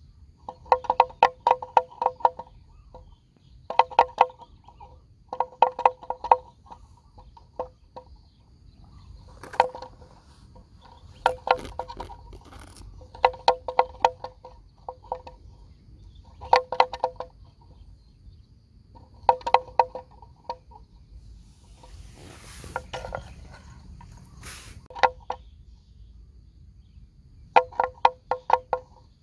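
Hollow bell worn by a grazing water buffalo, clonking in short bursts of rapid strokes about every two to three seconds as the animal moves its head.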